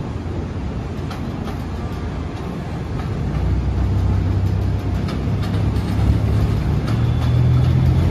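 An R62A subway train approaching on elevated express track: a low rumble with a steady hum that grows louder from about three seconds in, with scattered light clicks.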